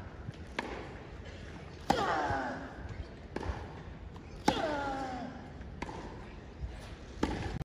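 A tennis rally: racket strikes on the ball about every one and a half seconds, alternating between nearer, louder hits and fainter ones from the far end. Two of the loud near hits carry the player's short grunt, falling in pitch. A crowd murmurs steadily underneath.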